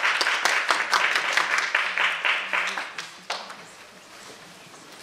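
Audience applauding, the clapping dying away about three seconds in, followed by a single sharp click.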